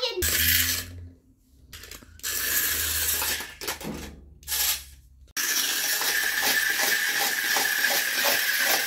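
Small battery-powered toy car running on a plastic track with a loop: its little electric motor gives a steady high whine and its wheels rattle over the track. The sound drops away twice in the first half, then runs on steadily.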